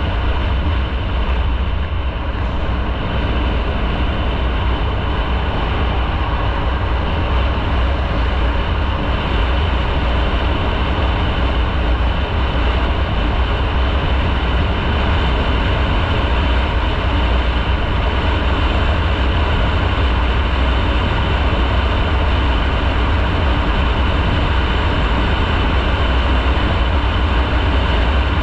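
Motorcycle riding along at a steady pace: a continuous, even rumble of the bike and the rushing air, strongest in the low bass, with no changes in speed or pitch.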